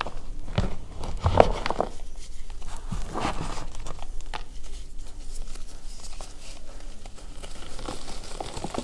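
Hands crushing and crumbling lumps of reformed gym chalk (magnesium carbonate) in loose powder: a dense run of dry, crunchy crackles, heaviest in the first couple of seconds and again about three seconds in.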